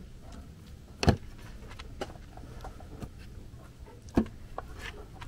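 Cut pumpkin pieces being set into a steel cooking pot, with a few short knocks of the pieces against the pot, the loudest about a second in and another about four seconds in.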